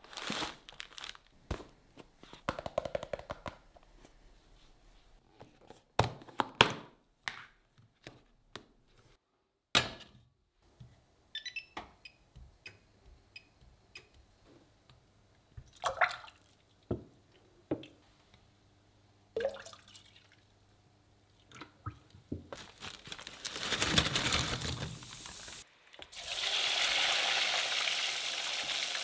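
Cardboard box and plastic wrap of frozen nuggets crinkling and tearing, with knocks of pans set on a glass hob and a few short beeps from its touch controls. Near the end, hot oil sizzles and bubbles as the food deep-fries in a steel saucepan.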